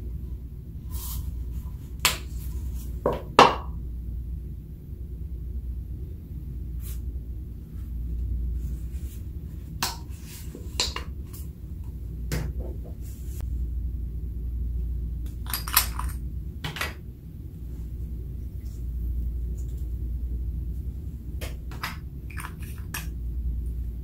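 Scattered clicks and light knocks of a plastic cosmetic tube and small containers being handled against a glass baking dish, the loudest a few about two to three and a half seconds in, over a steady low hum.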